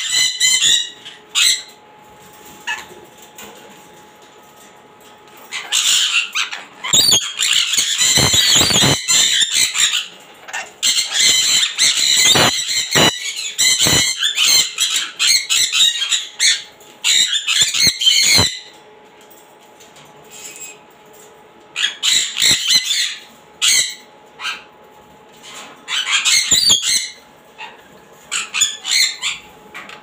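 Rainbow lorikeets giving harsh, shrill screeching calls, several birds at once in a long run of calls lasting about twelve seconds. A pause follows, then shorter bursts of calls near the end.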